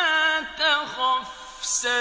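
Male Quran reciter chanting in the melodic mujawwad style: ornamented held notes that waver, break and resume, with a short hiss of a consonant near the end.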